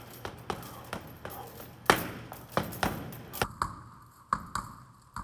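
Boxing gloves striking a hanging Title Boxing heavy bag in quick, irregular combinations: a dozen or so sharp smacks, the hardest about two seconds in.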